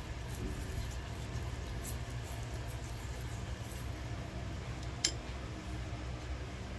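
Silicone basting brush swishing margarine across a hot nonstick frying pan, faint soft strokes over a steady low hum, with one sharp click about five seconds in.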